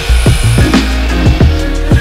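Electronic background music with a steady, heavy beat, over a miter saw cutting through a wooden board.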